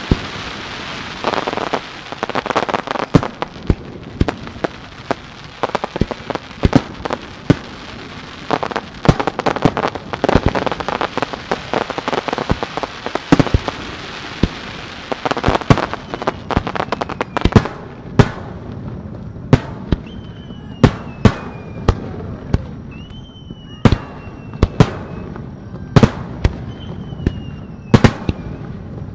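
Aerial fireworks display. For the first half, dense crackling over many overlapping bangs. From a little past the middle, separate sharp shell bursts come about once a second, with four whistles that rise quickly in pitch and then fall away.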